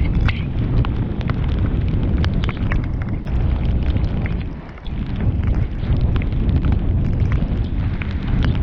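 Wind buffeting the action camera's microphone while riding a mountain bike, making a heavy rumble, with many sharp clicks and rattles from the bike going over rough, wet trail. The rumble drops briefly about five seconds in.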